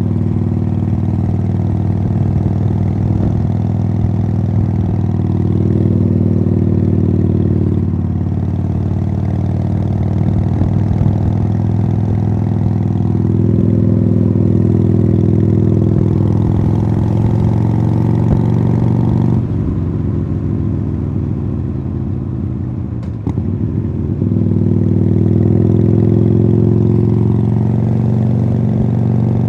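2015 Harley-Davidson Sportster Iron 883's air-cooled V-twin running through aftermarket Khrome Werks Tapered 3 exhausts while riding, pulling under throttle with shifts in engine speed. About two-thirds of the way through the throttle comes off and the engine drops to a quieter, lower note for a few seconds, then it pulls again.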